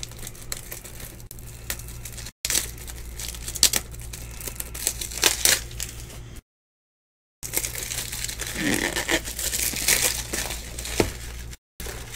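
Plastic card packaging crinkling and rustling as it is handled, in scattered crackles over a steady low hum. The audio drops out completely for about a second midway and for a moment twice more.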